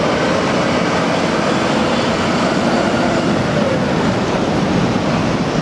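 London double-decker bus (New Routemaster type) driving past in city street traffic: steady engine and road noise with a faint drone.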